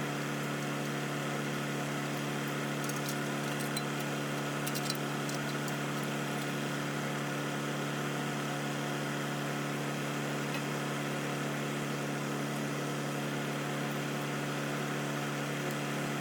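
A steady mechanical hum that holds one even pitch throughout, with a few faint light clicks about three to five seconds in.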